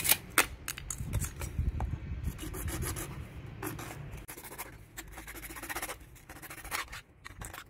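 Hand-held hacksaw blade sawing across PVC pipe, a rasping back-and-forth rub. A few sharp clicks and knocks in the first second as the pipe is handled.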